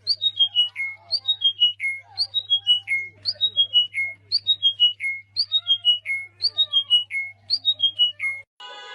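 A bird calling over and over: a quick run of about five whistled notes stepping down in pitch, repeated roughly once a second, over a faint steady hum. The calls stop just before the end, and music begins.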